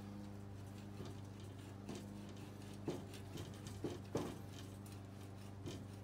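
Irregular metallic clicks and knocks of locking pliers working the front axle pivot pin of a Fordson Major tractor loose, the loudest a little after four seconds in, over a steady low hum.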